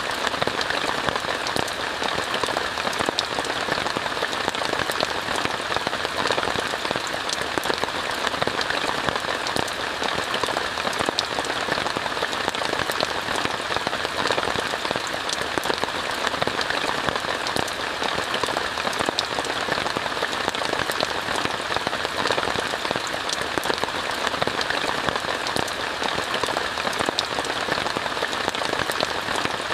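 Steady rain falling on a tent, a constant even hiss with many fine ticks of single drops.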